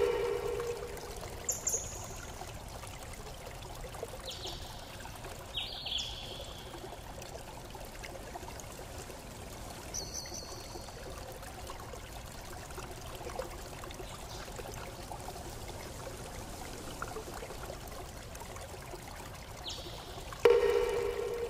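Steady flowing, trickling water with a few short high chirps scattered through it. Near the end a loud ringing tone starts sharply and fades over about a second.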